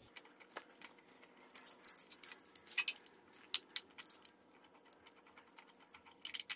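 Scattered light metallic clicks and clinks of hand-tool work on an engine, coming in irregular clusters.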